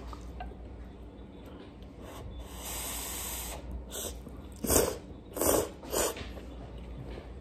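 Slurping chuka soba noodles: one long slurp about two seconds in, then four short, louder slurps in quick succession.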